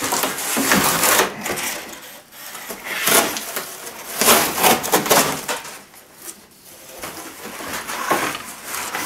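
Corrugated cardboard being sawn and ripped apart with the Extrema Ratio Task C knife's partly serrated blade: several rough, scraping tearing strokes with short pauses between them.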